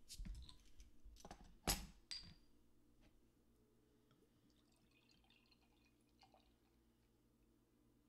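Bottle opener levering the crown cap off a glass beer bottle: a few sharp clicks in the first two seconds, the loudest as the cap comes off, then beer poured faintly into a glass.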